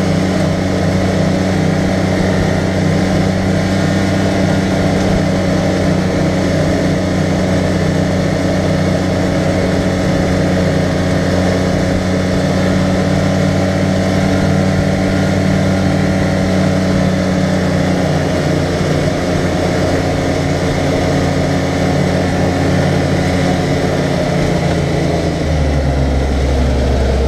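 Arctic Cat side-by-side UTV engine running steadily at road speed, with wind and road noise in the open cab. The engine pitch falls about two-thirds of the way through and drops again near the end as it eases off.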